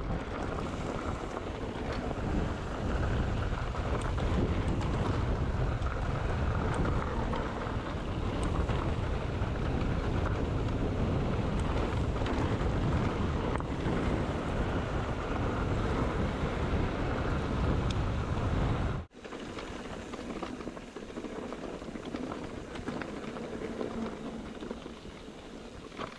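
Wind buffeting the microphone of a mountain bike's action camera during a fast ride, over the rumble and rattle of tyres on a rough dirt trail. About 19 seconds in it cuts abruptly to a quieter stretch with far less wind rumble, leaving tyre noise on the trail.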